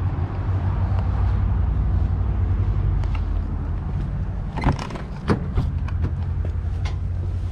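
Range Rover Sport's supercharged V8 idling with a steady low hum. A few sharp clicks come about five seconds in as the driver's door handle is pulled and the door unlatches.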